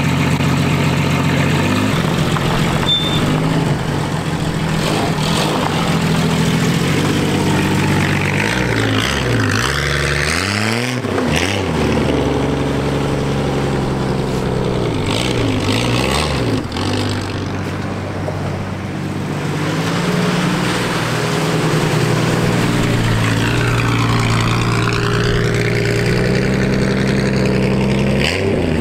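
Jeep Grand Cherokee's 4.0-litre straight-six running with its muffler cut out, loud under throttle as the Jeep drives donuts on dirt. The engine pitch dips and climbs again twice, about a third of the way in and just past the middle.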